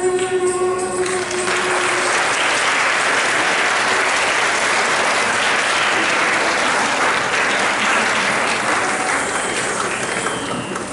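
Audience applauding, a dense steady clapping that swells in about a second in as the last held note of the music fades out.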